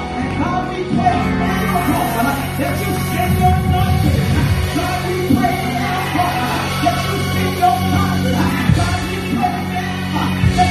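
A woman singing gospel praise through the church sound system, loud and at times close to shouting, over steady instrumental accompaniment with sustained low bass notes.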